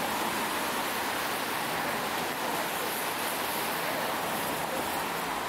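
Steady, even hiss of street noise, with no distinct knocks or horns standing out.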